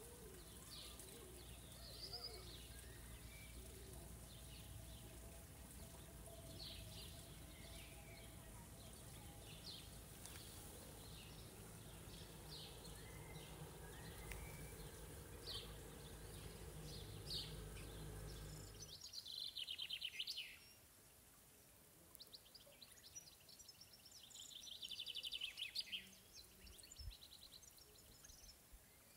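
Faint outdoor ambience of small songbirds chirping and singing, over a steady low rumble that cuts off suddenly about two-thirds of the way through. After that the bird song is heard alone, with a couple of louder fast trills.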